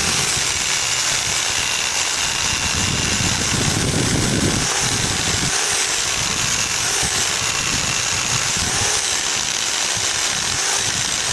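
Angle grinder running at full speed, its disc grinding a welded steel joint: a steady high whine whose pitch wavers slightly as the disc is pressed against the metal.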